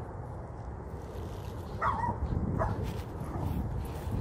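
A dog giving two short, high yips about two seconds in, the first dropping in pitch, over a low steady rumble.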